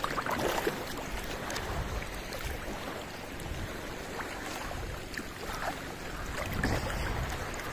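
Sea water sloshing and lapping close to the microphone as small waves wash through the shallows, a steady wash with light irregular splashes.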